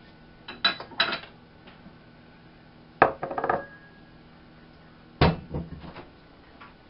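Dishes and kitchen things being handled on a wooden table: a few clinks and knocks in three groups, including a bowl set down about three seconds in with a short ring, and a sharp knock at about five seconds.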